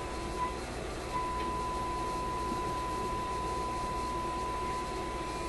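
RCA A25 vacuum-tube shortwave radio's speaker sounding a steady high test tone from a signal generator over a bed of hiss. The tone blips briefly, drops out, then comes back about a second in and holds steady: the receiver is tuned onto the generator's signal during band alignment.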